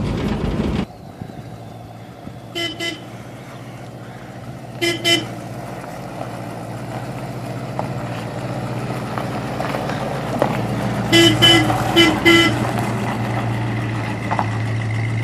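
A 1968 Plymouth Road Runner's horn sounding short double beeps, 'beep beep', twice early on and then four in quick succession near the end. Under the beeps the car's V8 engine runs steadily and grows louder as the car comes closer.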